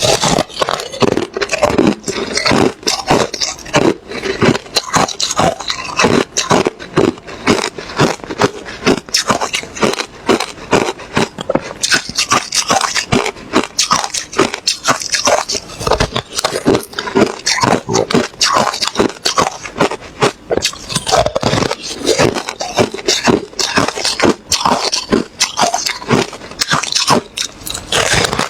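Close-miked ice being bitten and chewed: a dense, continuous run of sharp crunches and crackles, with hardly a pause.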